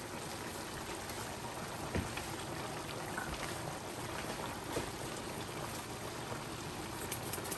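Pot of seasoned seafood-boil liquid bubbling at the boil, a steady watery hiss with one light knock about two seconds in and faint crackly ticks near the end.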